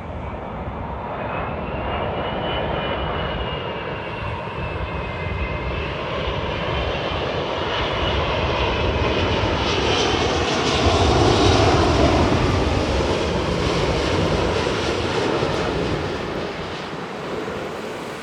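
Airbus A380 jet engines as the airliner passes by: the noise builds to its loudest about two-thirds of the way through, then fades. A high whine wavers and slides down in pitch early on.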